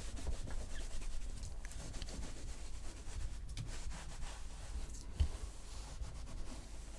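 A cleaning cloth rubbing and wiping over a plastic computer case in many short strokes. A light bump about five seconds in.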